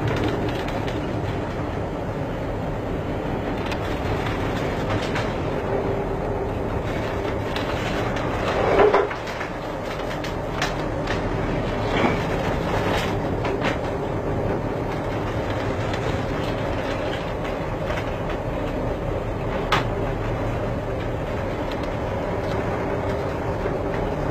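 Steady rumbling noise heard from the bridge of a cargo ship pitching through heavy seas, with a low hum under it. The bow slams into waves, loudest about nine seconds in with a heavy surge and thud, another thud near twelve seconds as spray bursts over the bow, and a sharp knock near twenty seconds.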